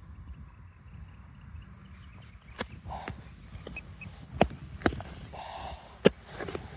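A handful of sharp knocks with scraping between them, starting about two and a half seconds in, as a digging tool works into soil and roots to recover a detected target.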